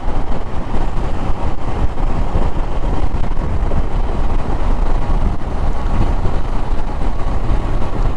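Royal Enfield Himalayan motorcycle being ridden, its 411 cc single-cylinder engine running under a steady rush of wind on the microphone.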